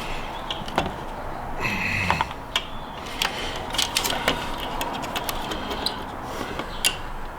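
Scattered sharp clicks and small plastic knocks as wire connectors are pushed onto the pins of a garage door opener's logic board.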